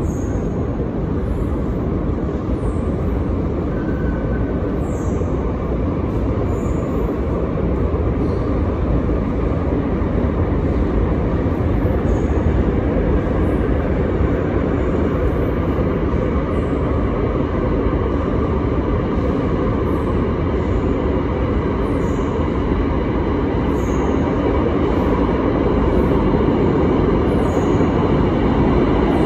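Bombardier metro train rumbling in the tunnel as it approaches the station: a steady low rumble that grows slowly louder, with a faint high whine coming in near the end.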